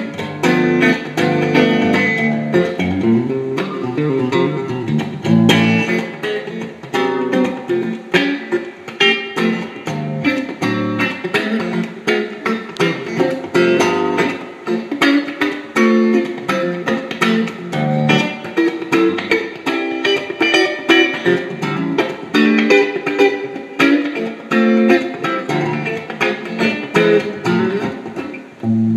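1964 Airline model 7283 electric guitar played with a pick: a continuous run of picked single notes and chords.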